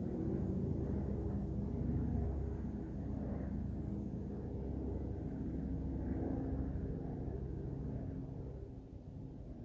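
A low engine rumble with a steady hum, easing off near the end.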